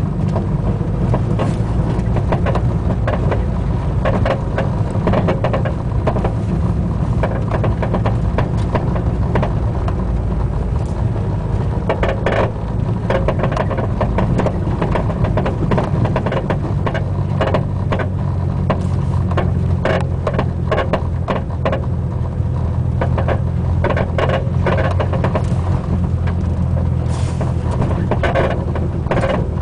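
Irregular creaks, pops and clunks from a Buddy Club racing-spec coilover at the front driver's side, over the steady rumble of the moving car. The uploader puts the creaking down to the top mount and the popping and clunking to the spring and shock body.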